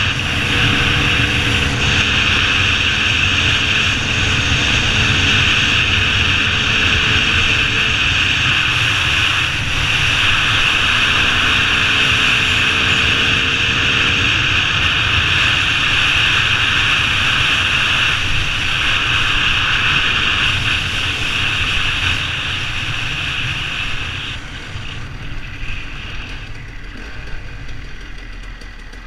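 Dirt bike engine running at a steady cruise, heard from a helmet-mounted camera with a constant rush of wind. It eases off and gets quieter about 24 seconds in as the bike slows.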